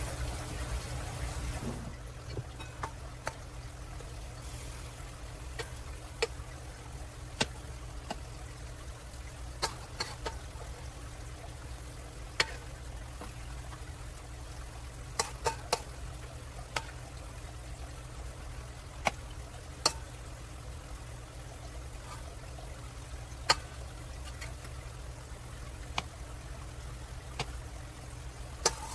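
Metal spoon scooping thick batter and clinking against a stainless steel mixing bowl and a metal mini loaf pan: about a dozen and a half sharp, irregular clinks over a low steady hum.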